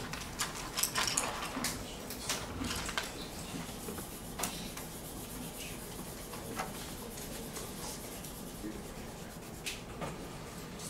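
Classroom room noise: scattered light clicks and knocks with brief rubbing and rustling of paper as students color their charts at the tables.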